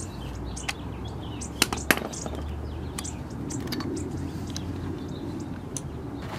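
A few sharp metal clicks and knocks as a cap-type oil filter wrench is taken off and the loosened spin-on oil filter is turned by hand, the loudest two close together nearly two seconds in, over a low steady hum.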